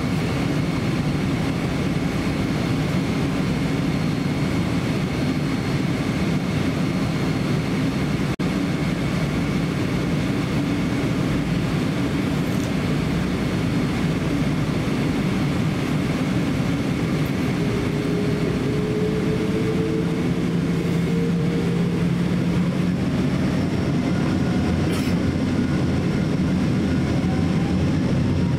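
Steady low rumble inside the cabin of a Boeing 777-300ER taxiing, its GE90 engines at taxi power. Over the last several seconds a whine rises in pitch.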